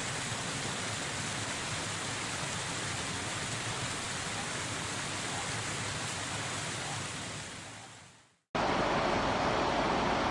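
Waterfall rushing steadily, then fading out about eight seconds in. After a moment of silence, a louder rushing noise cuts in abruptly.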